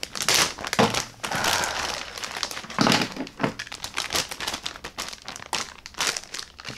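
Clear plastic bag crinkling and rustling as it is opened and its contents pulled out, densest in the first few seconds, with a couple of dull knocks as items are set down.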